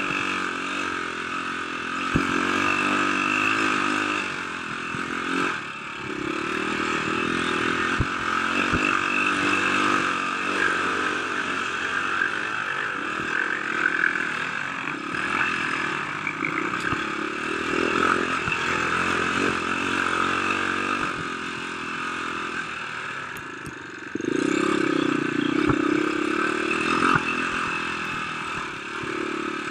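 Off-road motorcycle engine running under load on a rough dirt trail, its pitch rising and falling as the throttle opens and closes, with a few sharp knocks from the bike over bumps. The engine drops back briefly, then revs up hard near the end.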